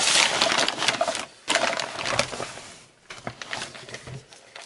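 Brown kraft wrapping paper rustling and crinkling under the hands as it is unwrapped and pushed aside. It is loud through the first three seconds, with a brief break about a second in, then drops to softer scattered crackles.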